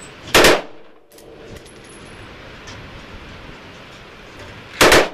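AR-15 in 5.56 with a Slide Fire bump-fire stock, firing two short bursts of rapid shots about four and a half seconds apart. Wind noise on the microphone runs between the bursts.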